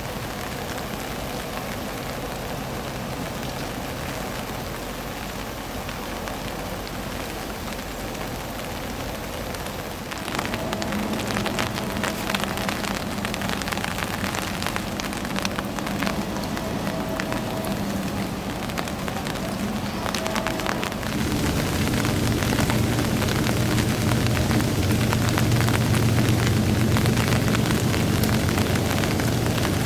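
Steady rain falling on a river's surface, a dense hiss of drops. It grows louder about ten seconds in and again about two-thirds of the way through, with a low hum underneath in the later part.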